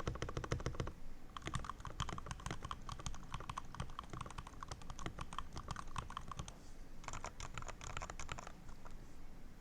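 HyperX Alloy Origins Core TKL mechanical keyboard with linear HyperX Red switches, pudding keycaps and stabilizers lubed with dielectric grease, typed on fast in bursts of rapid keystrokes. The typing pauses briefly past the middle, then comes another quick burst before it thins out near the end.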